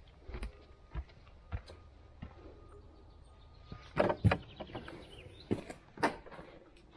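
Footsteps on a gravel path, then a wooden bothy door's latch clicking and the door being opened, with two sharp knocks about four seconds in and two more thuds near the end.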